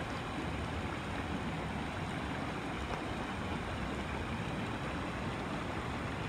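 Shallow mountain brook running over rocks: a steady rush of moving water.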